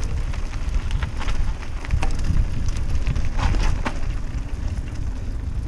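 Mountain bike running fast down a dirt forest trail: tyres rolling over packed dirt and dry leaves, with scattered clicks and rattles from the bike over bumps, over a steady low rumble of wind and vibration on the handlebar camera.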